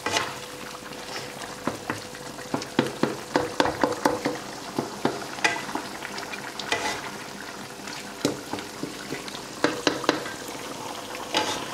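Beef karahi stir-frying in a karahi wok at the bhunai stage: a steady sizzle, with a spatula scraping and knocking against the pan again and again.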